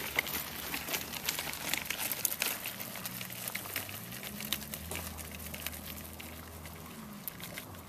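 Crunching and crackling of loose gravel under steps and the wheels of a dog wheelchair cart, dense at first and thinning out after about three seconds. A faint low hum runs under it from about four seconds in.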